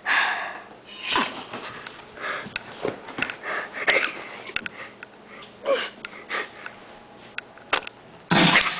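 Irregular breathy, hissing huffs and gasps from a person, with scattered sharp clicks and knocks between them. The longest and loudest breathy burst comes near the end.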